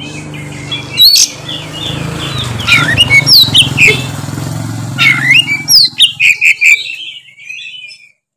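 Oriental magpie-robin (kacer) singing a loud, rapid run of varied whistles, glides and chirps, over a low steady hum. The song stops about a second before the end.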